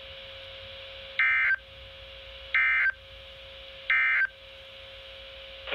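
Emergency Alert System end-of-message signal: three short, loud bursts of SAME digital data tones, evenly spaced about a second and a half apart, closing the warning broadcast. A faint steady tone runs underneath between the bursts.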